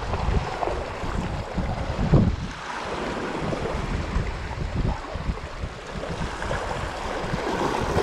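Strong gusty wind buffeting the microphone, with waves washing over the rocks underneath.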